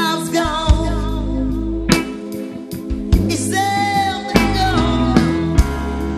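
Song with a solo voice singing over guitar and a steady drum beat.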